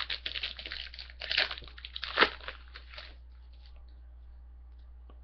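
A foil trading-card pack wrapper being crinkled and torn open, with a sharp rip about two seconds in. The crinkling stops at about three seconds, leaving a low steady hum.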